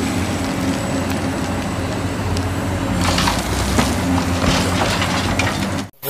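Large Caterpillar hydraulic excavator's diesel engine running steadily under load as it digs, with crackling and crunching of earth and rock against the bucket from about three seconds in. The sound cuts off suddenly near the end.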